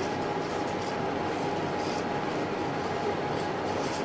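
Wooden tongue depressor scraping and spreading liquid counter enamel across a copper piece, in light repeated strokes over a steady background hiss with a faint steady hum.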